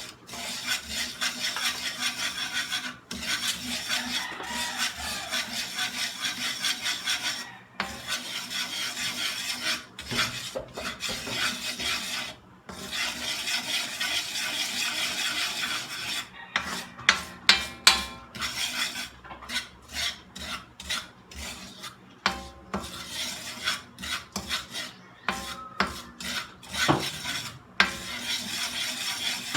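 A spoon scraping and stirring around a pot, mixing curry powder and spices in stretches of steady rasping strokes. A little past the middle come a run of sharp knocks of the spoon against the pot, the loudest sounds here.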